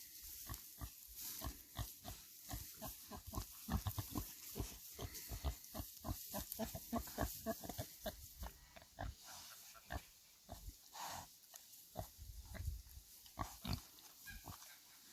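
Pigs grunting among many short, sharp crackles and rustles that come thick and fast, then thin out about halfway through.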